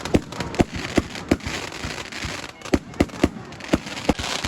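Fireworks going off: an irregular run of sharp bangs and crackles, several a second, over a steady crackling hiss.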